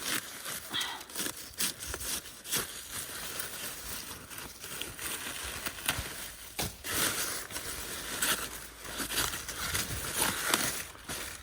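Irregular rustling, crackling and snapping of harvested napa cabbage and radish leaves being handled and trimmed.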